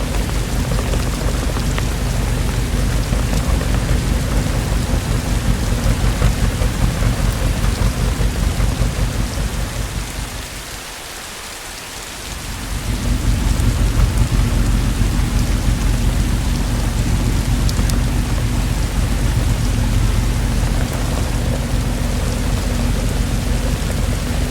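Steady rainfall with a low rumble of thunder underneath. Near the middle both the rain and the rumble fall away for a couple of seconds, then swell back up.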